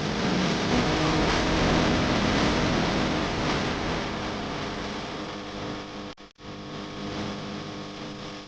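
Volkswagen 1.9 TDI (AFN) four-cylinder diesel engine running after its timing belt replacement, a steady engine note that slowly gets quieter. It breaks off briefly about six seconds in, then comes back lower.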